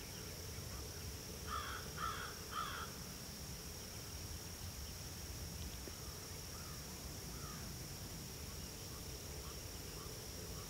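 A crow cawing three times in quick succession, about a second and a half in, over a steady high-pitched insect drone.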